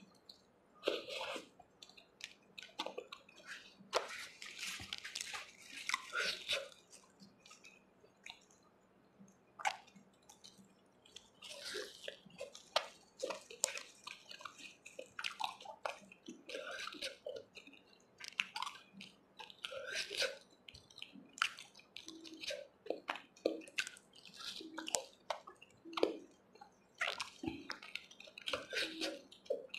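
Close-miked wet chewing and lip-smacking of soft chickpea curry with fried puri and rice, in irregular short bursts broken by sharp mouth clicks.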